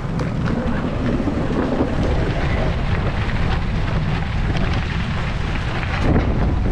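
Wind buffeting the camera microphone while riding a bicycle: a steady, heavy low rumble with scattered small clicks and rattles.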